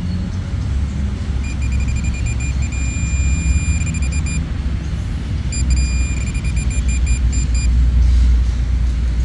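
Metal detector beeping over a found target: a high-pitched electronic tone in rapid pulses, with short held stretches, in two spells about a second and a half in and again around six seconds. A steady low rumble runs underneath.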